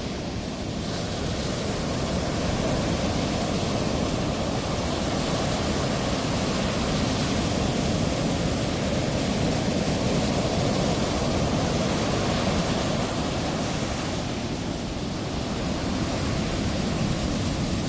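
Ocean surf: a steady rushing wash of breaking waves, swelling and easing gently.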